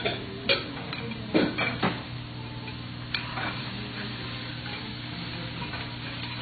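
Metal spatula and knife clicking and scraping against a steel teppanyaki griddle as cubed steak is turned and cut, a few sharp clicks clustered in the first two seconds and another about three seconds in. A steady low hum runs underneath.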